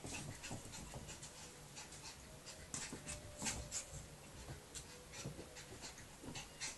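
Staffordshire Bull Terrier puppy playing rough with its mother: an irregular run of quick scuffs and small clicks as it scampers and nips at her, with dog breathing underneath.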